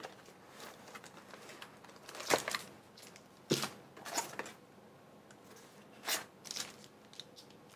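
Unboxing handling noise: plastic-bagged wrist rests and a cardboard box being handled. Short separate crinkles, rustles and light knocks, a second or so apart.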